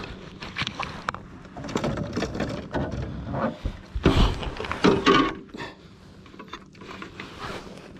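Handling noise in a fishing kayak: a run of clicks, knocks and clatter as a caught largemouth bass is lifted and laid on a plastic measuring board, with the loudest thumps about four to five seconds in, then only a few faint clicks.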